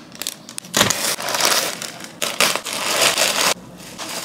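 Bubble wrap crinkling and crackling as it is unwrapped by hand, in a dense, irregular run of rustles from about a second in that stops shortly before the end.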